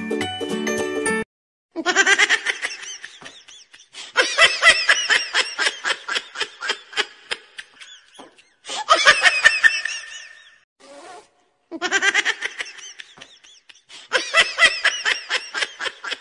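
Laughter in about five bouts, each a run of quick "ha-ha" pulses, with short pauses between them. A snippet of music cuts off about a second in.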